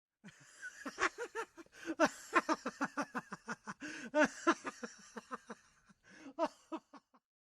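A person laughing in a long run of quick, short, pitched 'ha-ha' bursts, with a brief pause before a last few bursts.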